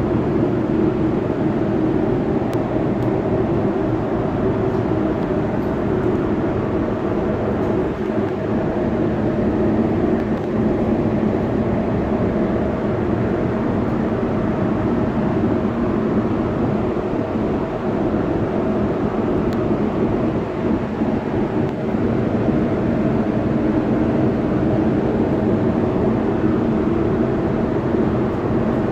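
A motor running with a steady, loud drone that does not change.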